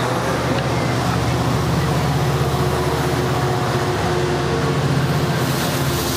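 Amtrak F59PHI diesel locomotive passing close by under power as it pushes a departing bilevel passenger train, a steady low engine drone over the rumble of the rolling cars.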